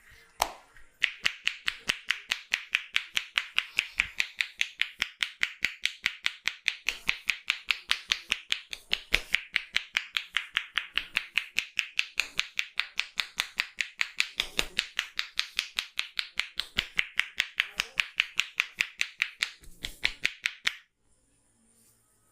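A barber's hands striking in rapid, evenly spaced percussive claps as part of a head massage, roughly five a second, stopping abruptly near the end.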